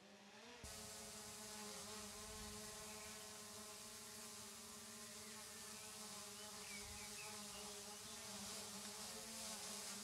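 DJI Mini 3 Pro drone hovering about ten metres up: a faint, steady propeller hum with several held tones.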